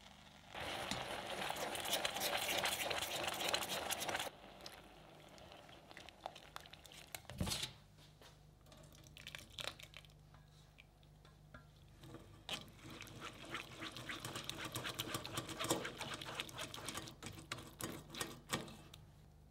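Sauce sizzling in a stainless saucepan on the hob, starting suddenly and cutting off after a few seconds. Then scattered clicks and a knock, followed by a long run of dense, crackly squishing and scraping as a rubber spatula presses thick sauce through a metal mesh sieve.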